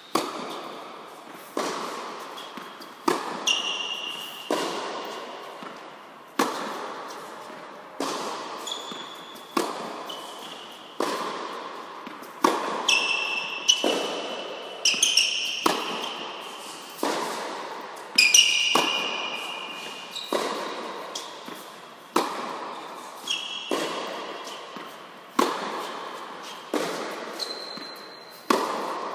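Tennis ball struck by rackets in a backhand rally: a sharp pop about every second to second and a half, each ringing out in the echo of an indoor tennis hall. Short high squeaks of tennis shoes on the court come between many of the hits.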